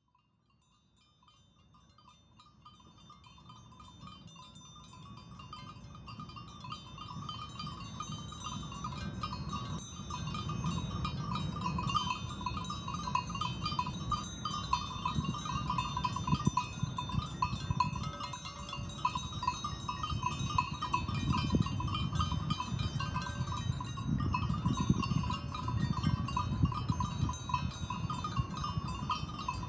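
A grazing flock of sheep, fading in from silence over the first ten seconds: a steady tinkling and jangling of many bells over a low, uneven rustle.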